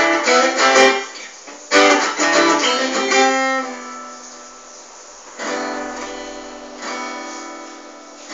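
Acoustic guitar strummed. There are quick rhythmic strums over the first few seconds, then a chord left to ring out and fade, struck again twice near the end.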